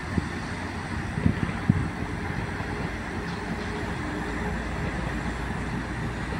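Steady low rumble of heavy vehicle engines running, with a couple of short dull thumps about a second and a half in.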